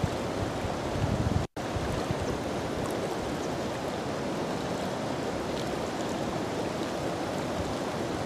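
Steady rush of a shallow mountain river flowing, with no other sound standing out. The rush cuts out for an instant about a second and a half in.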